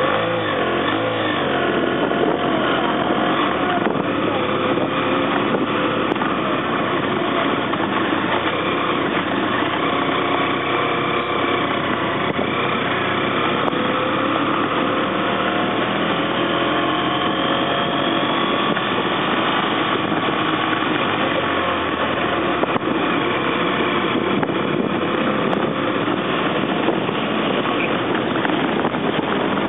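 BMW F800ST motorcycle's parallel-twin engine running at low riding speed, heard from the rider's seat, its pitch rising and falling as the throttle opens and closes.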